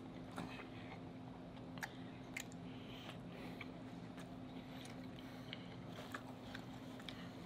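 Close-miked chewing of buttered crab or lobster meat with the mouth closed: scattered soft, wet mouth clicks and smacks. A faint steady low hum runs underneath.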